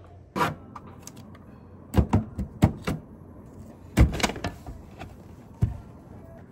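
Irregular knocks and clacks of objects being handled and set down on a desk, in three or four small clusters, the loudest a heavy thump about four seconds in.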